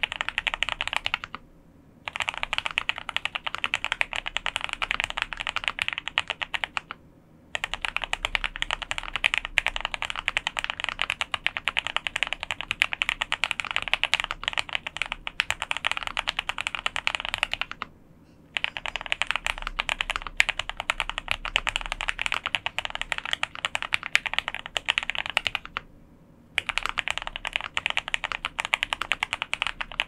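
Fast continuous typing on a QK65 custom mechanical keyboard with Gateron Box Ink Black linear switches lubed with Krytox 205g0, GMK keycaps and an aluminium plate. A dense stream of keystrokes is broken by four brief pauses.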